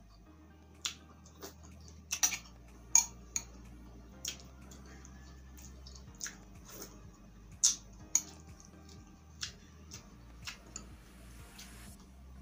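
Close-miked eating sounds: a metal spoon clinking against a glass bowl of sauteed pechay broth, mixed with wet mouth clicks of chewing. About a dozen sharp irregular clicks, the loudest about two to three seconds in and near eight seconds.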